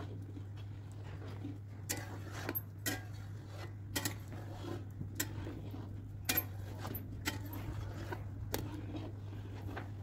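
Long metal ladle stirring milk being boiled down for khoya in a large metal kadhai, knocking and clinking against the pan irregularly, about eight times from about two seconds in, over a steady low hum.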